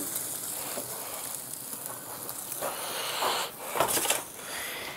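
Steady sizzling hiss from a wood-fired grill and its hot iron plate, with two short louder handling noises a little past halfway.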